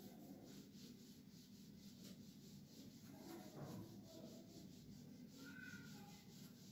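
A whiteboard being wiped clean by hand: faint, repeated rubbing strokes.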